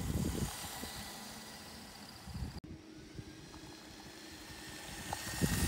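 Remote-control LEGO Technic car driving on asphalt: its small electric motors running with a faint steady whine, over rumbling plastic tyres on the rough road. The rumble is loudest at the start while the car is close, then fades.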